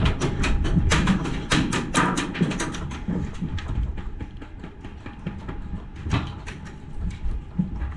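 Airsoft gunfire with BBs striking around: a rapid, irregular run of sharp snaps and cracks, dense for the first few seconds, then thinning out to scattered hits.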